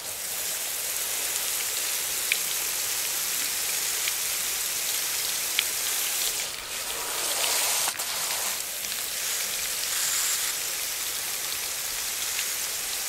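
Garden hose spray wand on its shower setting, a steady spray of water falling onto coarse bonsai substrate in a pot: a freshly repotted tree being watered until the water runs clear.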